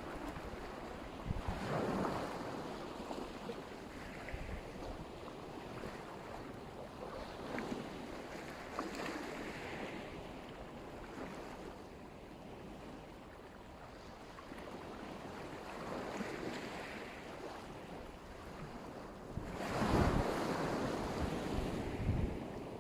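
Black Sea surf washing onto the shore, waves breaking and rolling in. The largest swells come about two seconds in and about twenty seconds in, with wind buffeting the microphone.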